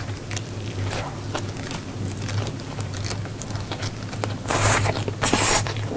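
Close-miked chewing of a big mouthful of gimbap (seaweed-wrapped rice roll), with many small wet mouth clicks over a low steady hum. About four and a half seconds in come two louder hissing rushes.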